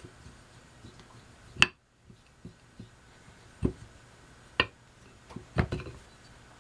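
A few sharp, separate clicks and knocks of an oilstone and tools being handled as the stone is cleaned. The loudest comes about one and a half seconds in, and two more fall close together near the end.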